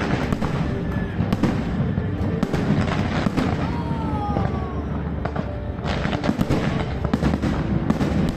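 Fireworks display: a rapid, continuous run of overlapping bangs and crackles over a low rumble, with music playing along.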